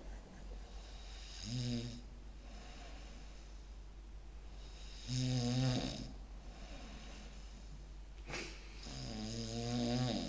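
A sleeping pet snoring: three snores, one every three to four seconds, each a low buzz with a hiss on top, and a brief sharp sniff shortly before the third.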